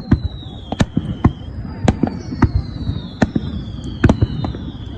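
Fireworks display: rapid sharp bangs of shells bursting, about two a second, with several whistling shells whose whistles slide down in pitch.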